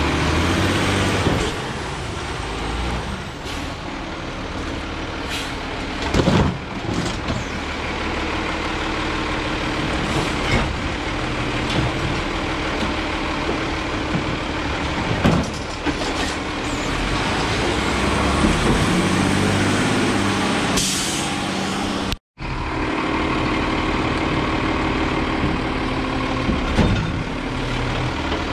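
Autocar Xpeditor garbage truck's engine running steadily while its hydraulic side arm works the carts, with several loud bangs as carts are handled and dumped. There is a short air-brake hiss near the end.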